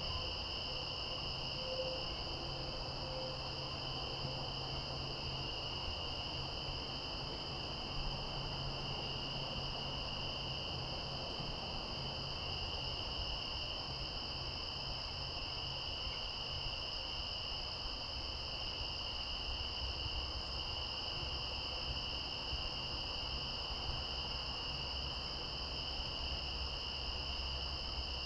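Insects singing in a steady, unbroken chorus at two high pitches, over a low rumble.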